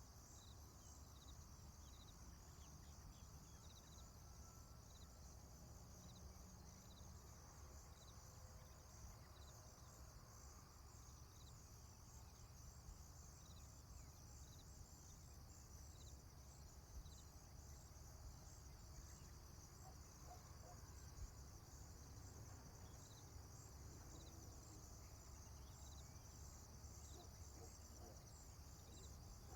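Faint rural ambience of insects trilling steadily, high-pitched and without pause, with short chirps repeating about once a second over a low background rumble.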